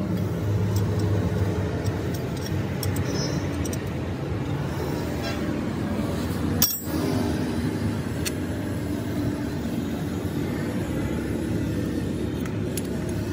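Steady background rumble like road traffic, with a few light metallic clicks and one sharp click about seven seconds in.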